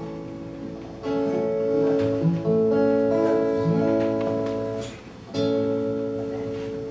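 Acoustic guitars strumming chords that ring out and fade, with a new chord struck about a second in, again around two and a half seconds, and again past five seconds.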